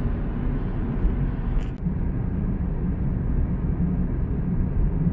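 Steady low rumble of a moving vehicle heard from inside it, with a faint click about two seconds in.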